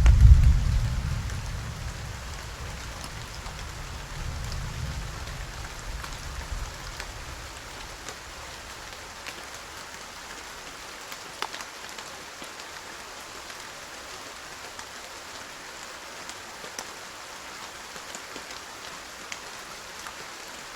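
Steady rain falling, with scattered sharp drop ticks over an even hiss. A loud low rumble dies away over the first two seconds.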